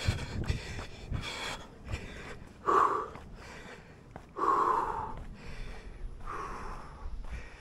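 A runner's heavy breathing close to the microphone: three long, loud breaths about a second and a half apart in the second half, the sound of someone catching his breath after a jog. Light footsteps can be heard in the first couple of seconds.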